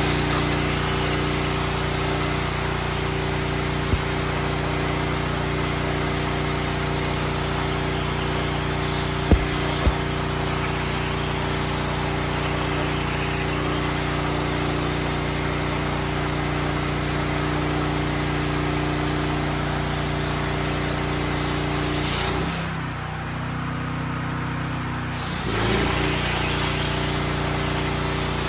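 CNC plasma cutter cutting steel plate: a loud, steady hiss with a hum underneath, and a few sharp clicks. The hiss stops for about three seconds near the end, then starts again as the next cut begins.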